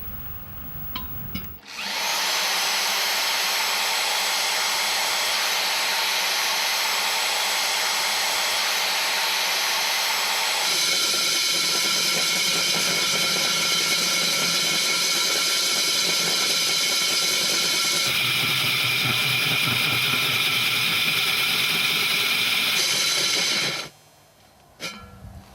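DUSS DIA 300 W / DIA 303 W diamond core drill running under load, a steady whining motor with a hissing cutting sound. It starts about two seconds in, its tone shifts abruptly twice, and it stops shortly before the end.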